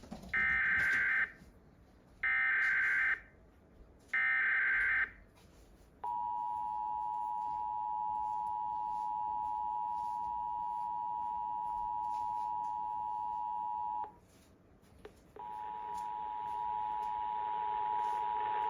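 Emergency Alert System tones received over FM radio. First come three short bursts of SAME digital header data, about a second each. Then the steady two-tone attention signal (853 and 960 Hz) holds for about eight seconds. After a brief gap the two-tone signal sounds again over a hiss.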